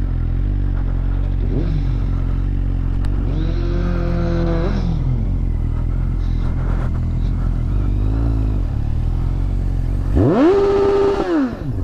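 Motorcycle engine running under way, its revs climbing and levelling off a few seconds in, then a sharp rev up and back down near the end.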